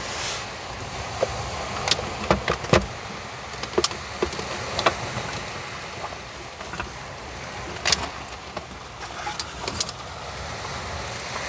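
Camping gear handled on a wooden table: a fabric drawstring pouch rustling and a small electric cooker unpacked and set down, with a series of short clicks and knocks. A steady background hiss lies under it.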